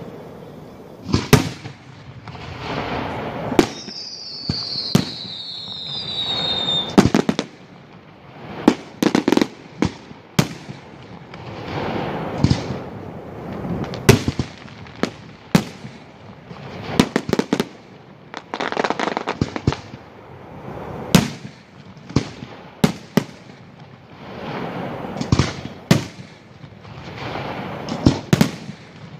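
Fireworks display: aerial shells bursting in sharp bangs, often several in quick succession, with crackling between them. About four seconds in, a whistle falls in pitch for about three seconds.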